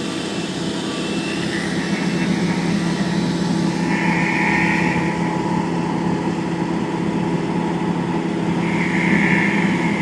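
A wood chipper's engine running steadily under load, with two louder stretches of rasping noise, about four seconds in and near the end, as branches are fed through.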